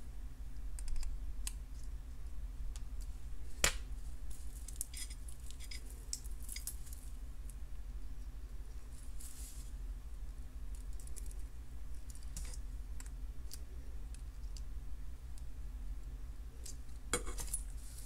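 Jewellery pliers opening and closing a metal jump ring, with small scattered clicks and clinks of the tool, the ring and the beaded chain being handled. There is a sharper click about four seconds in and a few more near the end, over a steady low hum.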